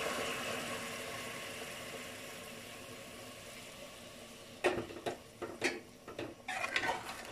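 Hot water poured from a pan into an aluminium pressure cooker of fried pork pieces, splashing steadily and tailing off over the first few seconds. Then, about two-thirds of the way in, a metal spoon clinks and scrapes against the pot several times.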